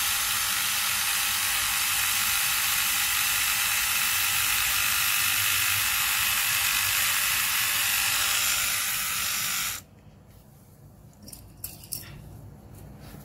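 Kemei electric nose hair trimmer running with a steady, drill-like whir while held in the nostril, switched off abruptly about ten seconds in, followed by a few light handling clicks.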